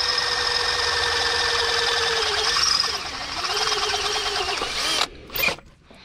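Milwaukee 18-volt cordless drill running steadily while drilling out a hole in the excavator's bracket. Its pitch sags briefly about halfway as the bit loads up, and it stops about five seconds in, with one short burst of the drill just after.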